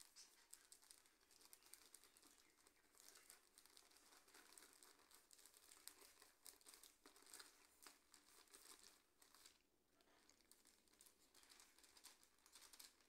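Faint, irregular crinkling of a plastic flour bag as it is held and tipped to pour flour into a bowl.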